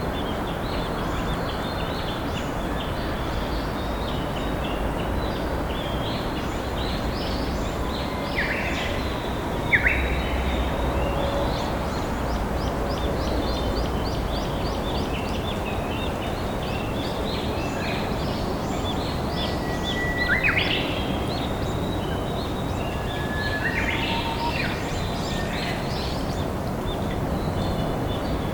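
A river flowing steadily, with wild birds singing and calling over it. Louder songs stand out about nine and twenty seconds in.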